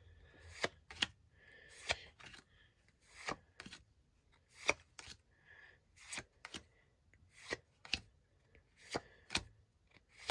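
Pokémon trading cards being flipped through one at a time. Each card is slid from the front of the stack to the back with a soft rustle and a light snap. The snaps come roughly once a second, often in quick pairs.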